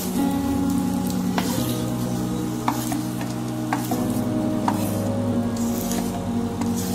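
Spatula scraping and knocking in a non-stick kadai as fried onion pieces are scooped out, with hot oil sizzling. A steady low hum runs underneath, and the spatula knocks sharply about once a second.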